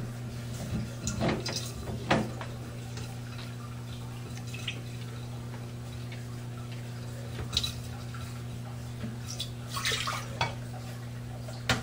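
Water dripping and trickling from a loosened plastic sink trap, with a few knocks and clicks from the trap pieces as they are worked loose by hand, over a steady low hum.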